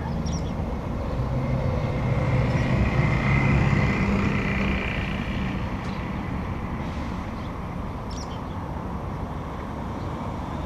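A motor vehicle passing, its engine hum and road noise swelling to a peak about three to four seconds in and then fading to a steady background hum. A few brief, faint high calls cut through, in keeping with swifts flying past.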